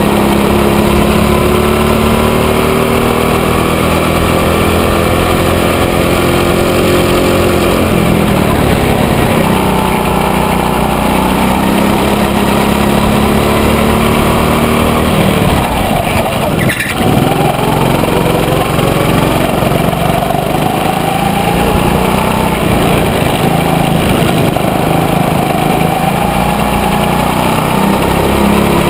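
Go-kart engine running hard, heard from on board the kart: its pitch climbs steadily under throttle, drops sharply about halfway through as the kart slows for a corner, then climbs again. A single short knock comes just after the drop.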